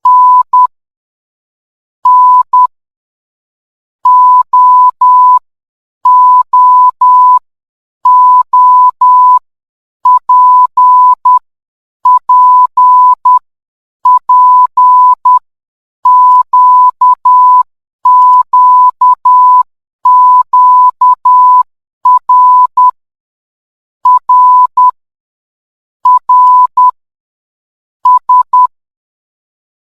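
Morse code played as a single steady beep tone keyed into dots and dashes, one character group about every two seconds with a short silence between groups.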